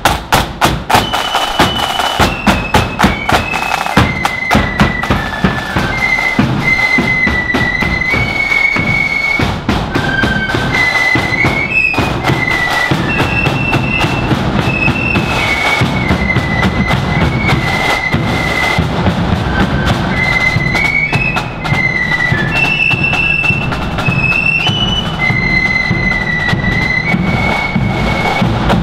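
Marching flute band playing: massed side drums beat a steady rattle, loudest in the first few seconds, under a high tune on the flutes.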